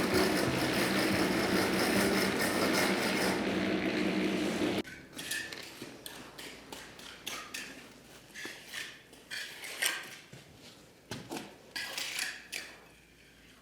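Background music that cuts off suddenly about five seconds in, followed by scattered knocks and scrapes of hand tools at work.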